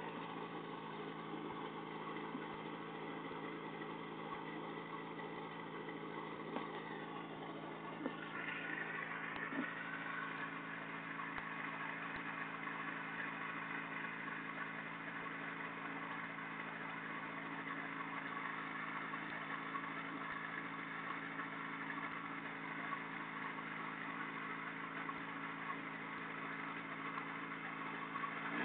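Microlight trike's engine idling steadily on the ground. Its pitch rises slightly about eight seconds in, then holds.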